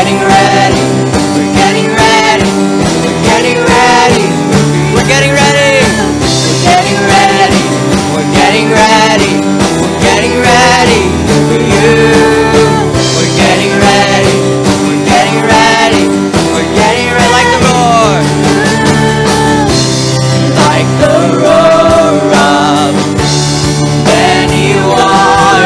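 A worship band playing a song, with guitar, steady bass notes and a wavering melody line that may be wordless singing.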